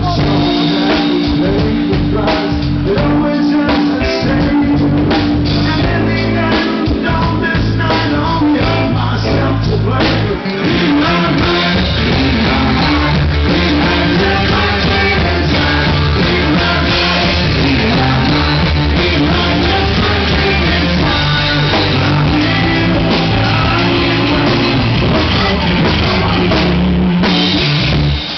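Live rock band playing: drum kit, bass and electric guitar, the drums to the fore at first and the band filling out about ten seconds in.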